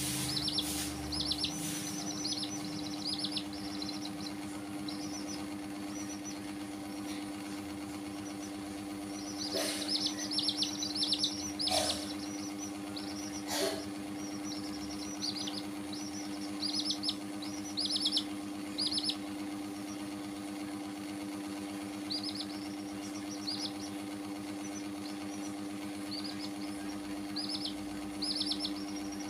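Baby chicks peeping: groups of short, high cheeps that fall in pitch, coming in bursts with pauses between. A steady low hum runs underneath, and a few sharp clicks sound around the middle.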